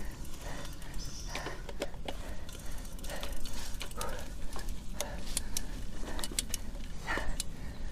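Nakamura 730 Ltd mountain bike riding over a rough, wet forest trail. A steady low rumble of wind and tyres sits on the action camera's microphone, with frequent sharp clicks and knocks as the chain and frame rattle over roots.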